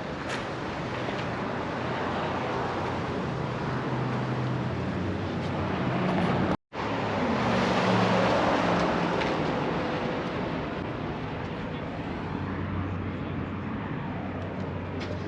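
Car engines running, a low steady hum under a wash of noise that swells for a few seconds after the sound cuts out briefly about six and a half seconds in.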